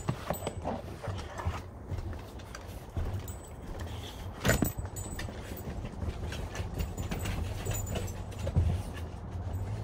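Handling noise as a phone is moved and set down, then scattered taps, scuffs and clicks of dogs and a person moving on a wooden porch deck, over a steady low hum. One sharp knock stands out about four and a half seconds in.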